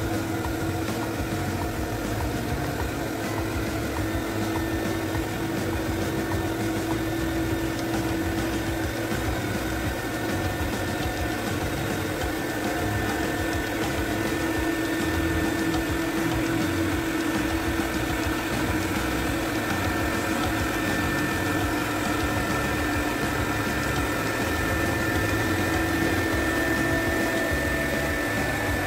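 Electric upright carpet-cleaning machine running steadily as it is pushed over carpet: a constant motor drone with a steady high whine.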